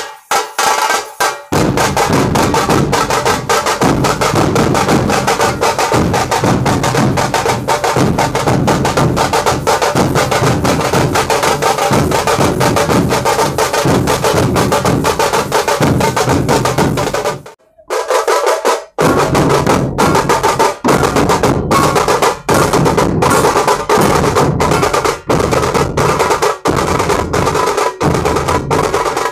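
A dhol tasha ensemble playing: large barrel-shaped dhol drums beaten with sticks together with small tasha drums, in a fast dense rhythm. It opens with a few separate strikes, breaks off briefly a little past halfway, then resumes.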